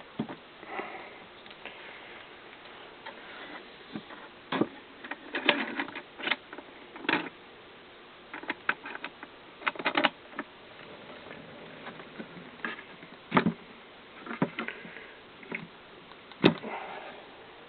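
Irregular clicks and knocks from a pocket-knife store display cabinet being handled and moved, a dozen or so separate taps, with the sharpest knock near the end.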